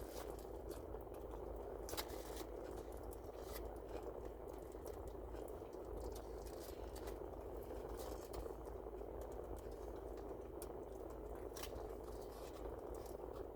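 Faint eating sounds, chewing with a few short sharp clicks, over a steady low background noise.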